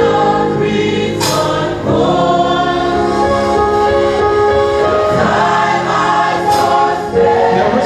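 Gospel choir singing a slow song in held, sustained notes.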